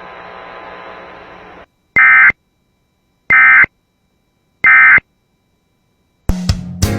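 Emergency Alert System end-of-message data tones: three short, loud bursts of digital data warble, about a second and a half apart, closing a weather radio marine warning. They follow a short stretch of faint radio hiss, and music with guitar and drums starts near the end.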